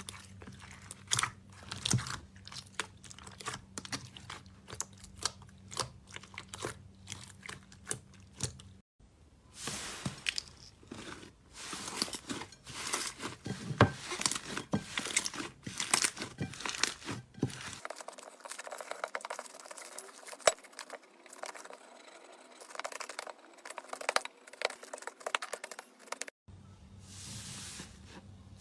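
Slime being handled: irregular crackling, popping and tearing sounds as it is squeezed, stretched and pressed. The sound changes character abruptly three times as one short clip cuts to the next.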